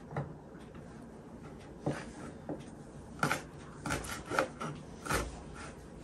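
Kitchen knife chopping green chili on a cutting board: about half a dozen separate knocks of the blade on the board, spaced irregularly, coming more often in the second half.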